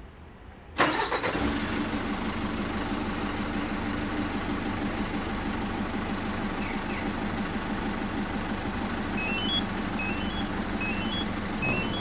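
Hyundai County minibus's diesel engine remote-started by a Magic Car G7 alarm, catching at once about a second in and then idling steadily. Near the end a short rising three-note electronic beep repeats about once a second.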